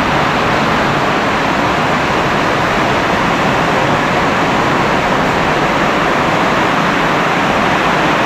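Heavy rain falling steadily: a loud, even hiss.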